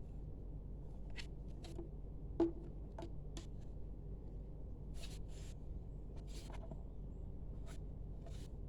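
Hands handling a cordless paint sprayer and its packaging: scattered light clicks and short rustles, with one sharper click about two and a half seconds in, over a steady low hum.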